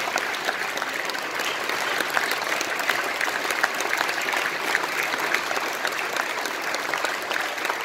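Audience applauding: a steady, dense mass of handclaps.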